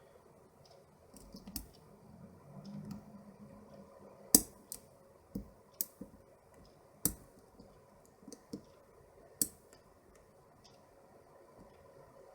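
Lock pick and tension wrench working the pins of a worn five-pin euro cylinder: about nine short, sharp metallic clicks at irregular intervals, the loudest about four seconds in.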